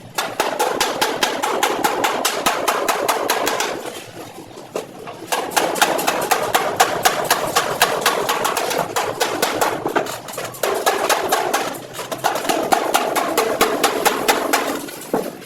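Rapid, even hammer strikes on a van's sheet-steel body panel, several a second, each ringing. The strikes come in three runs with brief pauses between them, as in panel-beating out accident damage.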